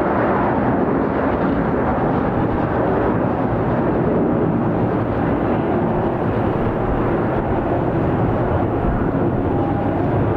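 Steady jet engine noise from a Delta Boeing 757-200 airliner, an even rumble and roar that holds at one level throughout.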